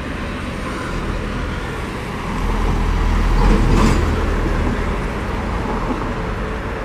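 Steady road traffic noise, with a low rumble that swells louder in the middle and eases off again.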